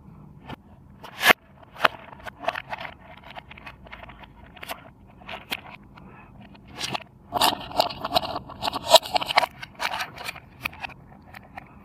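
Hands handling a toy and its packaging: a run of sharp clicks and scrapes, thickening into a louder rustling, scraping stretch about seven to nine and a half seconds in.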